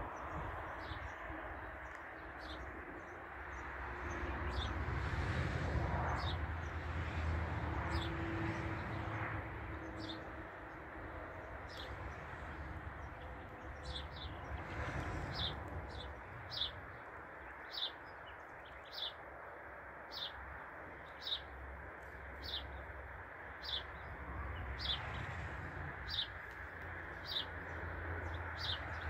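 A bird repeating a short, high chirp, sparse at first and then about one to two times a second through the second half, over a steady outdoor hiss and low rumble.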